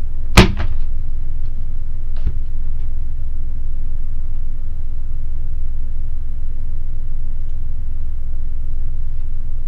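A steady low rumble throughout, with a sharp, loud knock about half a second in and a lighter click about two seconds in.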